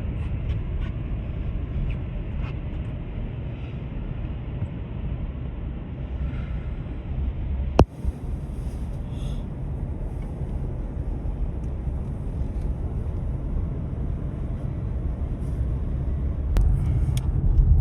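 Steady low rumble of a moving car, with one sharp click about eight seconds in.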